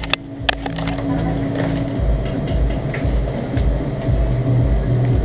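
Bass-heavy music playing, heard mostly as an even low beat about two to three times a second, with a couple of sharp clicks at the start.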